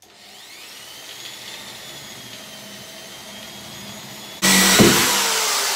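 Corded electric drill starting with a rising whine and running steadily, then becoming much louder and grinding about four and a half seconds in as the bit bores into the brick/plaster wall, its motor pitch slowly falling under the load.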